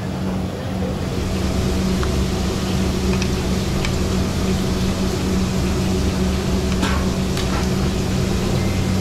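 Steady low mechanical hum and rush of stall kitchen machinery, with a few faint clicks of a knife scraping meat paste into bitter gourd rings.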